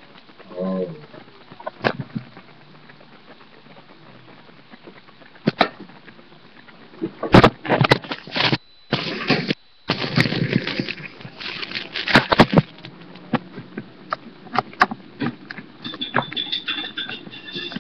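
Knocks, clatter and bumps of a webcam being handled and carried, thickest in the middle, where the sound cuts out completely for about a second. A short pitched sound comes just after the start.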